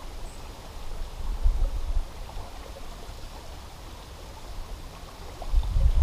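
Lake water sloshing gently around the shallows, with wind rumbling on the microphone; the rumble gusts louder near the end.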